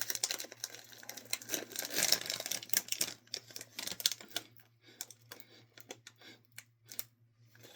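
Plastic snack bag of cheddar popcorn crinkling and crackling as it is opened and handled: dense irregular crackles for about three seconds, then scattered ones.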